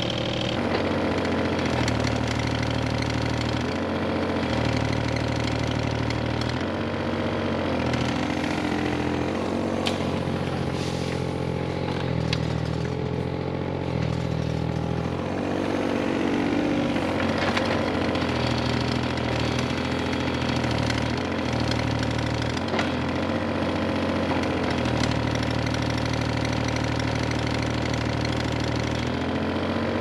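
Kubota KX41-3V mini excavator's diesel engine running under hydraulic load while it digs, its note stepping up and down as the arm and bucket move. A few sharp knocks are heard from the bucket and boom at work.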